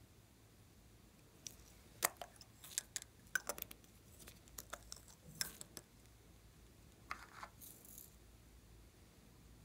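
Faint clicks and light clinks of hard lipstick cases being handled, in a run of taps between about one and a half and six seconds in and a few more near the end.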